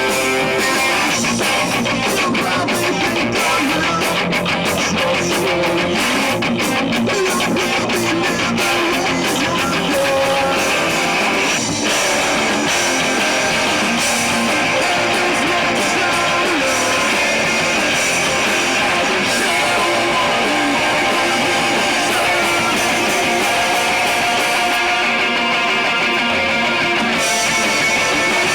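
Live rock band playing, with loud guitars prominent, and fast, dense rhythmic hits through the first several seconds.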